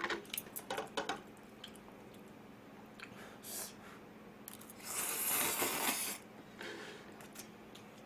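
A person slurping instant ramen noodles in one long noisy slurp about five seconds in, after a few light clicks of utensils and dishes at the start.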